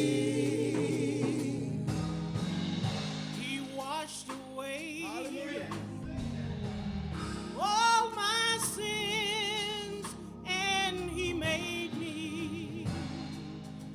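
Gospel song: long held sung notes with heavy vibrato, some sliding up, over a steady sustained accompaniment.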